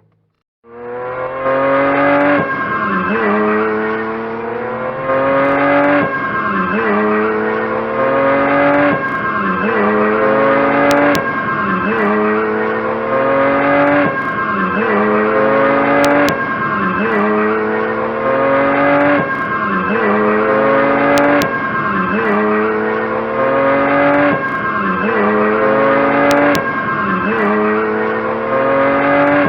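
Engine sound effect of a car accelerating, looped: the pitch climbs, then drops sharply as if on an upshift, repeating evenly about every two seconds after starting half a second in.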